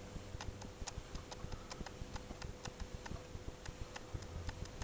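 Steady hum of an electric potter's wheel, with light, irregular clicks about three or four times a second.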